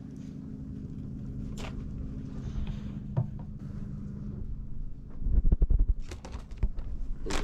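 Plastic zip-top bag crinkling and rustling as walleye fillets are shaken in flour, with a run of loud low thumps about five to six and a half seconds in. A steady low hum runs underneath.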